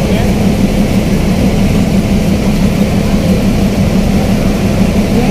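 The Port Link III ferry's engines running with a loud, steady, deep hum as the ship gets under way.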